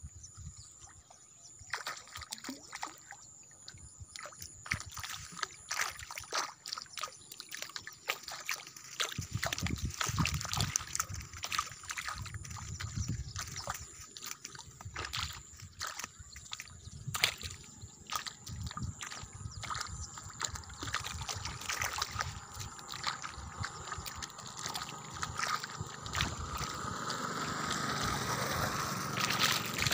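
Shallow pond water sloshing and trickling, with many short knocks and rustles scattered through. A rushing noise rises and grows louder near the end.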